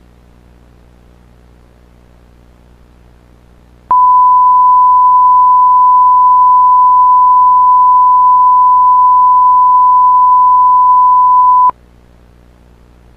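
Television bars-and-tone test tone: one steady, loud pure tone that starts suddenly about four seconds in, holds for about eight seconds and cuts off abruptly. Before and after it there is only a faint low hum and hiss.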